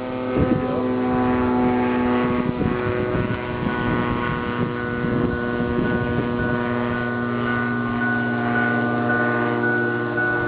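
Ultralight aircraft engine droning steadily in flight, a level pitched hum with many overtones, with wind buffeting the microphone.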